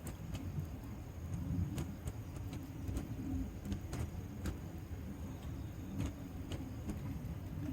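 Wood fire crackling in a fire pit: irregular sharp pops over a low rumble.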